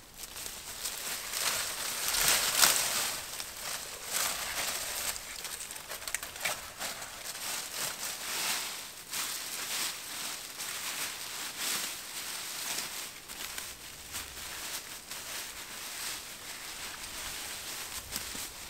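Dry fallen leaves and twigs rustling and crackling as armfuls of leaf litter and brush are scooped up and heaped onto a debris shelter, loudest about two to three seconds in.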